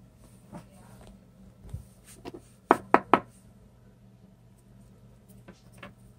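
A wax crayon tapped and set down on a wooden shelf top: three sharp knocks in quick succession about three seconds in, with a few fainter taps before and after.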